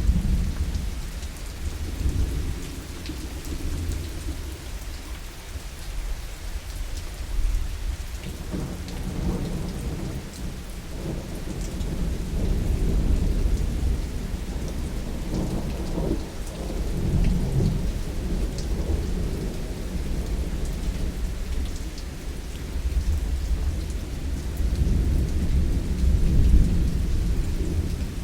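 Heavy rain falling steadily with rolling thunder rumbling underneath, the rumble swelling and fading several times.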